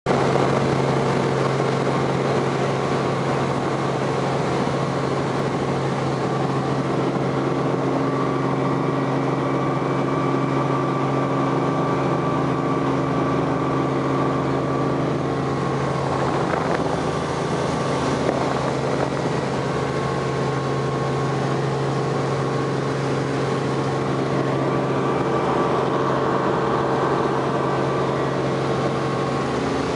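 Robinson R44 helicopter's six-cylinder Lycoming piston engine and rotors running, heard from inside the cabin as a steady drone with several held tones. About halfway through, one of the tones drops away and the drone shifts slightly.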